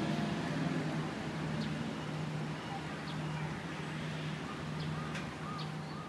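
Outdoor city ambience by a river: a steady low hum under a wash of background noise, with a few short bird calls in the second half.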